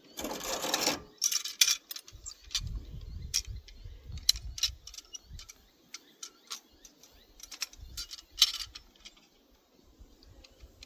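Metal tools and pump parts being handled, with clinks, clatter and a scrape at the start and again near the end.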